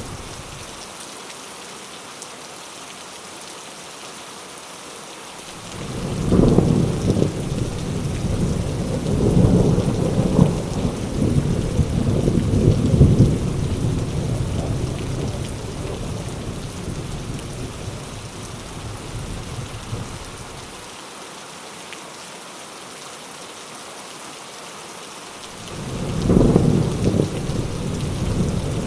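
Heavy rain falling steadily, with thunder rolling in twice: a long rumble that builds about six seconds in and dies away over the next fifteen seconds, and another starting near the end.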